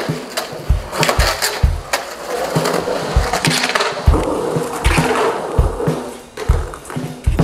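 Skateboard wheels rolling and carving on the concrete walls of an empty swimming pool, under background music with a drum beat.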